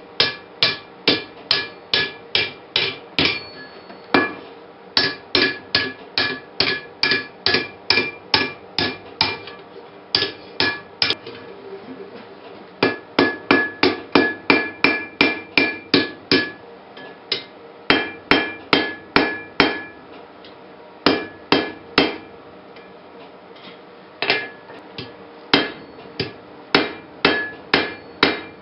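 Blacksmith's hammer striking steel on an anvil in runs of quick blows, about two to three a second, with short pauses between runs. Each blow leaves a brief metallic ring from the anvil.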